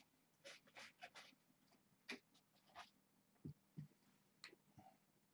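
Faint scattered rustles and light taps, then a few soft low thuds about three and a half to five seconds in, as a person in socks moves about on a floor mat.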